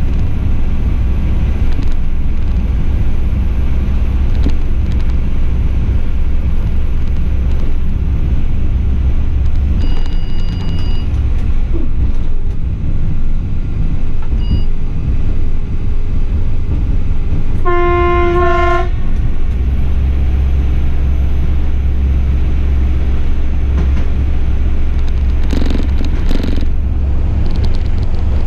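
Class 840 RegioSpider diesel railcar on the move, its wheels and bogie giving a steady loud rumble on the track, with one horn blast of about a second roughly two-thirds of the way through.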